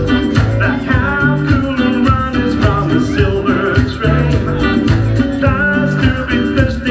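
Upbeat pop music with a steady, repeating bass line and guitar, part of a singer's live set.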